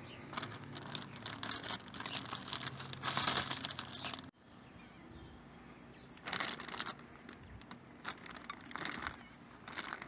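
Clear plastic zipper bag crinkling as grape clusters are dropped into it and the bag is handled. A dense run of crackling for about four seconds stops abruptly, then three shorter bursts follow.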